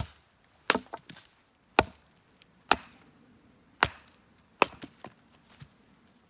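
A series of sharp chopping blows, six loud strikes spaced about a second apart with a few lighter knocks between them.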